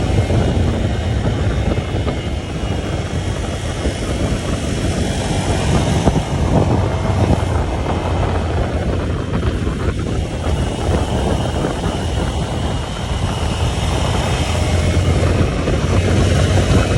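Motorcycle engine running steadily under way, mixed with loud wind rush on the microphone; it eases off briefly about halfway through.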